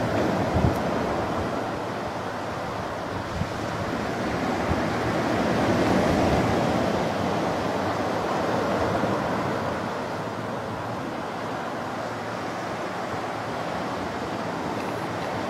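Ocean surf breaking and washing up the sand, a steady rush that swells about six seconds in, with a brief low thump about half a second in.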